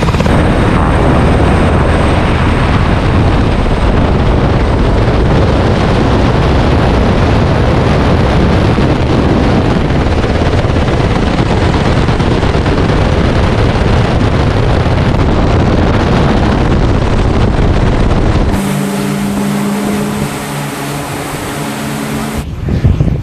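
Loud, steady roar of helicopter turbines and rotors on a carrier flight deck. Near the end it gives way to a quieter steady machinery hum with a few held tones.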